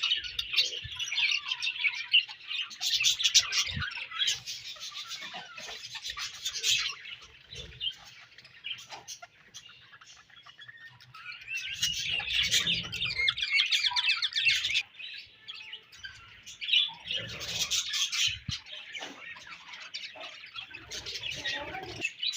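A colony of budgerigars chirping and warbling together in bouts, with a quieter lull partway through.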